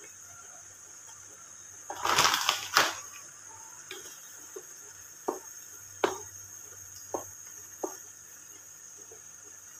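Wooden spatula stirring shrimp and crab balls in a butter sauce in a metal pan: a loud rustle about two seconds in, then several short knocks of the spatula against the pan, over a faint steady sizzle.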